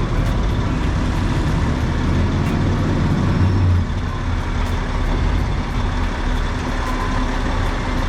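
Heavy engine running steadily with a low rumble, easing slightly about four seconds in.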